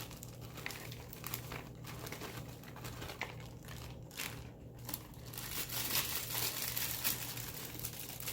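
Plastic salad-kit packaging crinkling and rustling as it is handled, in irregular crackles that grow busier about halfway through, over a low steady hum.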